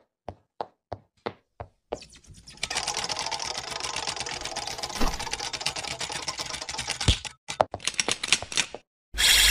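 Cartoon sound effects: a few single clicks about a third of a second apart, then about five seconds of dense, rapid typewriter-like clattering with a knock in the middle, a few more clicks, and a bright ringing that starts near the end.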